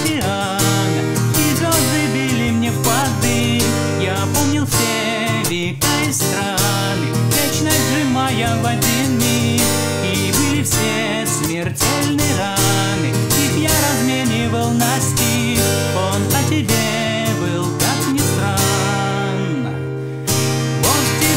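Acoustic guitar strummed with a capo on the third fret, moving through Hm, Em and Am7 chords, with a man's singing voice over it.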